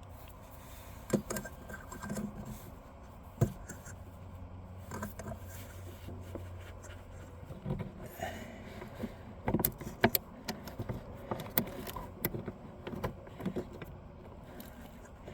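Scattered metal clinks, clicks and light scrapes from hands working on a riding mower's deck-engagement cable, tension spring and bracket, with a few sharper clicks about ten seconds in.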